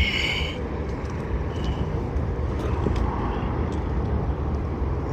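Steady low outdoor background rumble, even throughout, with no distinct event.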